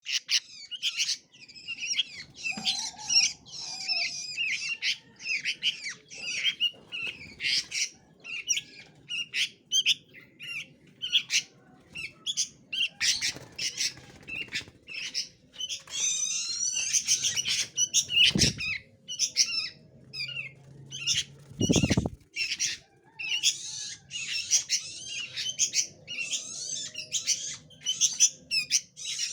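Small songbirds in an aviary chirping and squawking in quick, rapid calls throughout, with two dull thumps about 18 and 22 seconds in.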